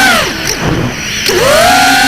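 FPV quadcopter's motors whining steadily, then spooling down sharply as the throttle is cut just after the start and spooling back up about a second and a half in, the pitch falling and then rising again.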